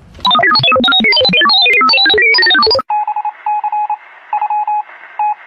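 A fast run of electronic beeping tones jumping up and down in pitch. About three seconds in it gives way to a thin, trilling telephone-style ring in short repeated bursts, heard through a narrow phone-line sound.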